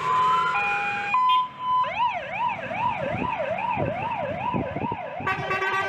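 Fire engine's electronic siren. It opens with short held tones, then from about two seconds in it sweeps up and down quickly, about twice a second. Near the end a second steady tone joins it.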